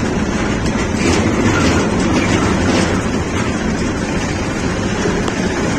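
Small 5.5 hp single-cylinder engine of a two-wheel walking tractor running steadily under way along a dirt road.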